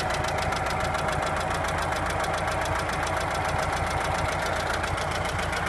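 Volkswagen Passat B5's 1.6-litre ALZ four-cylinder petrol engine idling with a fast, even knocking from inside the engine.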